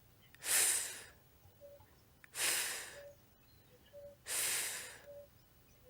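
A woman voicing the /f/ letter sound three times, each a breathy 'fff' hiss about a second long with a pause of about a second between them.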